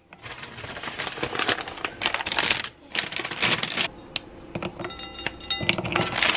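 Squares of milk chocolate clattering into a bowl as they are dropped in by hand, a quick irregular run of small clicks and taps.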